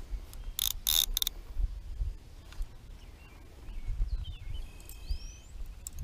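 A metal level-wind fishing reel worked by hand, giving a quick run of sharp metallic clicks about a second in. Near the end a bird calls with a few short whistles, one rising.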